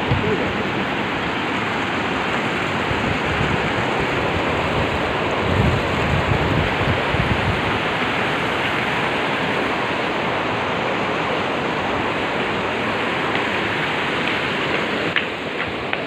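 Steady rushing of a waterfall and river cascade, an even water noise throughout, with a few low rumbles about six seconds in.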